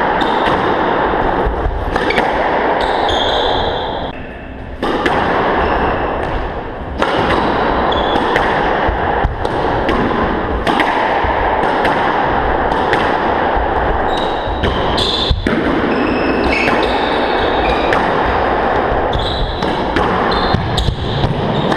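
Squash rally: the ball smacks off racquets and the court walls every second or two, with short squeaks of shoes on the wooden floor, over a loud steady background noise.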